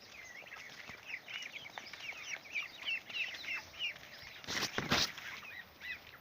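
A flock of young poultry peeping: many short, falling chirps in quick succession. A brief, louder rustling noise comes about four and a half seconds in.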